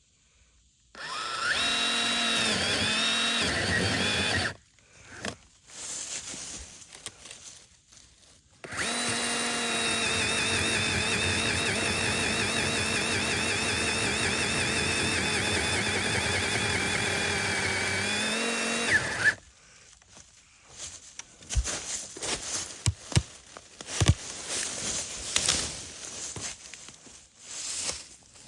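Ryobi pole saw cutting into a spruce trunk, its motor whining under load. First a short burst in which the pitch dips and recovers, then a long run of about ten seconds with a slightly wavering pitch, which cuts off sharply. Scattered sharp cracks and rustling follow.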